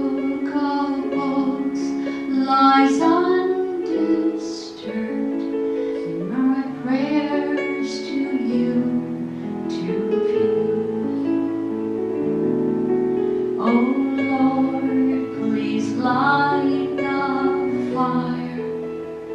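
A woman singing a solo into a microphone, holding long notes over a steady instrumental accompaniment of sustained chords.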